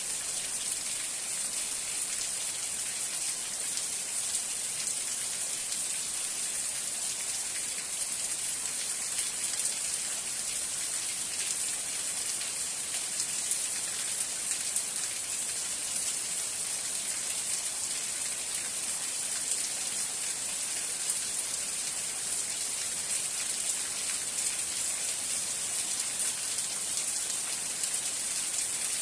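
Steady rain falling and pattering on a surface, a continuous hiss full of fine drop patter.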